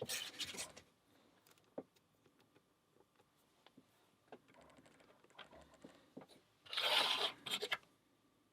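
Scraping and small clicks from a lock and lockpicking tools being handled, with two louder scrapes, one at the start and one about seven seconds in.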